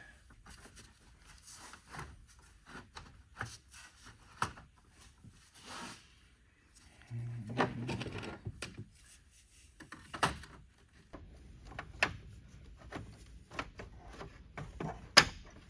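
Scattered clicks, knocks and rubbing as hose clips and plastic parts are worked loose by hand during a car repair, with one sharp click near the end.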